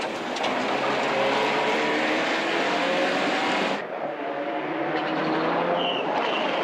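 Mitsubishi Lancer Evolution rally car's turbocharged four-cylinder engine at hard throttle, its pitch climbing and dropping through gear changes, heard first from inside the car. About four seconds in the sound cuts to the car running toward the trackside microphone, with a short high squeal near the end.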